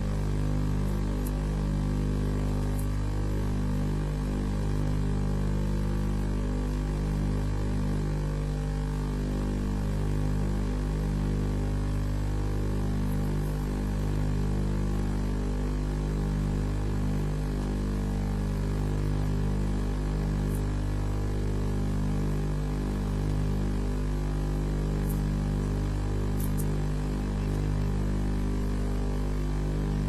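Steady electrical mains hum, a stack of low buzzing tones that swells and fades slowly and unevenly.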